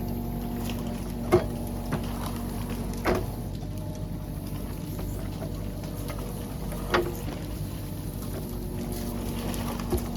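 Mini excavator's diesel engine running steadily, with a few sharp knocks and clunks from the machine at work.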